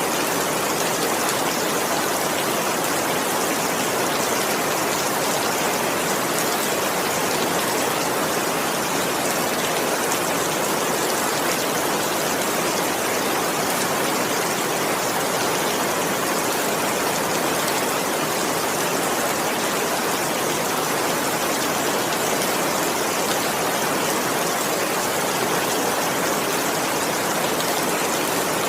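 Steady heavy rain falling without a break, an even, unchanging hiss of water with no thunder.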